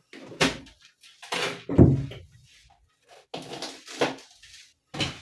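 Rubber door seal being pulled out of a refrigerator door, in a few short scraping, rubbing bursts.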